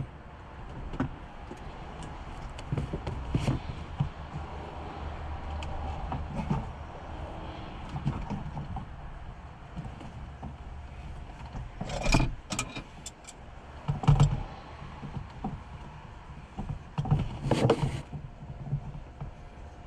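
Hands working the old fuel pump module and its hose connectors: irregular plastic clicks, knocks and rattles, with a few louder clatters in the second half.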